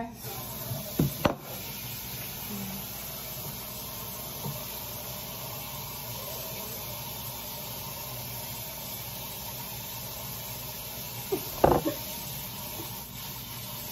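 Tap water running steadily into a pot, a continuous even hiss, with a couple of brief knocks about a second in and near the end.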